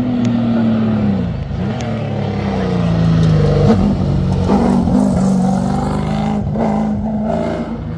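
Racing car engine running loud. It drops in pitch over the first second, then pulls up again in several steps, each broken by a short dip like a gear change.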